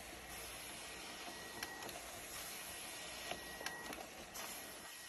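Sheet-fed document scanner feeding a sheet of paper: a faint steady whir with a thin high tone that comes and goes, and a few light clicks.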